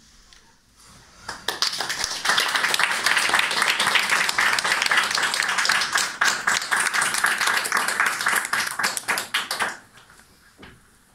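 Audience applauding, many hands clapping fast. The applause starts about a second in and dies away shortly before the end, leaving a couple of faint knocks.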